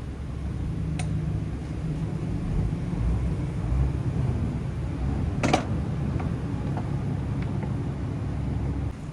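Steady low rumble of a running machine, with one sharp metallic clink about halfway through.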